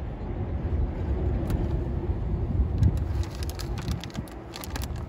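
Steady low outdoor background rumble, with a scatter of light clicks and taps from about three seconds in as small parts are handled over an open engine.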